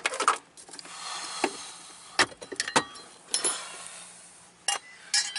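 Metal battery hold-down bracket clinking and knocking against the battery and surrounding metal as it is worked free and lifted out: a string of sharp clicks and knocks with rustling handling between.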